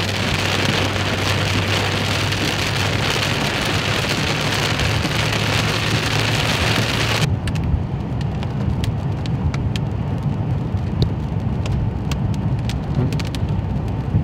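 Hail and rain pelting down in a dense, steady hiss. About seven seconds in the hiss cuts off abruptly, leaving a low rumble with scattered sharp hits of single stones.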